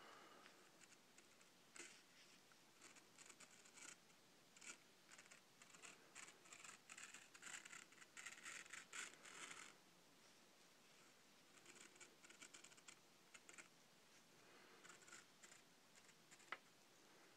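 Freshly sharpened knife blade slicing fine shreds off the edge of a sheet of paper: faint, papery scratching in short runs, busiest from about five to nine and a half seconds in, with one sharp click near the end.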